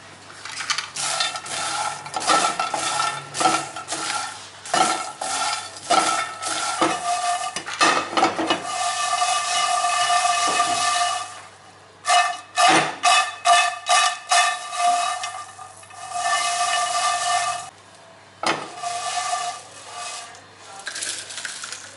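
Whole dried red chillies rattling and skittering in a nonstick frying pan as it is shaken and moved over a gas burner to dry-roast them, with many quick clicks and scrapes of the pan. A steady whine sounds under it and drops out twice, around the middle and near the end.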